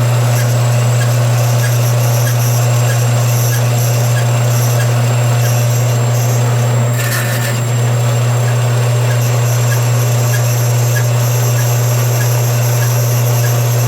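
Band saw running steadily as its blade cuts slowly through a thick cast-brass bar, with a strong motor hum and a light tick repeating about every two-thirds of a second. About halfway through there is a brief knock and a short dip in the sound.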